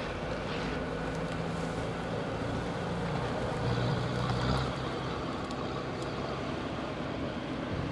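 SHERP amphibious ATV's diesel engine running steadily as the machine pulls out of the water onto the bank, swelling a little about four seconds in.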